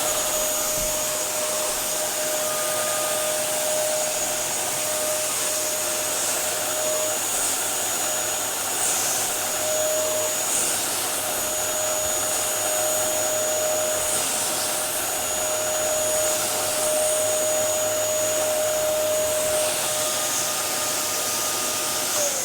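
Dyson DC07 bagless upright vacuum cleaner running steadily, a high motor whine over rushing air. At the very end it is switched off and the whine falls in pitch as the motor spins down.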